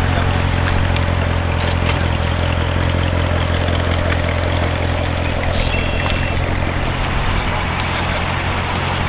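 Chevrolet C7 Corvette Stingray's 6.2-litre V8 running with a steady low rumble as the car creeps along at walking pace.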